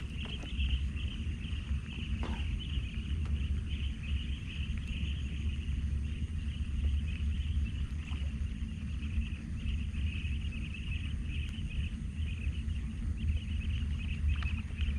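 Chorus of insects in the flooded plantation, a high pulsing chirr that runs on steadily over a low, continuous rumble.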